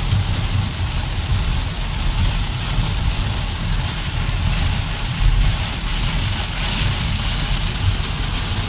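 Heavy rain hissing on a car's windshield and roof, heard from inside the cabin, over the steady low rumble of the car's engine and tyres on the wet road.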